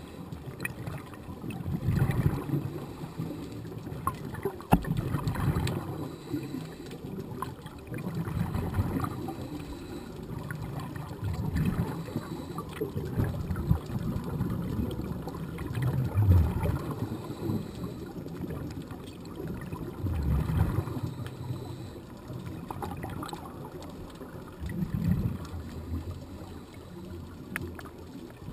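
Muffled underwater sound through a camera housing: a scuba diver's exhaled bubbles gurgling in low surges every three to four seconds over a steady wash of moving water, with one sharp click about five seconds in.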